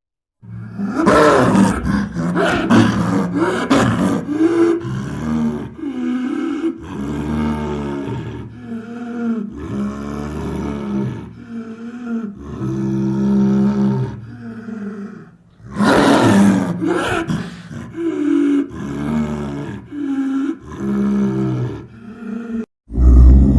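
A made-up creature call mixed from leopard and wolf sounds: a long string of rough roars and growls, one after another, with a brief pause about two-thirds of the way through.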